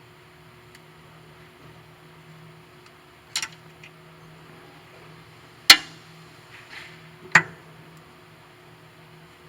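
Three sharp metallic knocks, with a fainter tick between the first two, the loudest in the middle, as the gear is worked onto the lathe's spline selector shaft, over a faint steady hum.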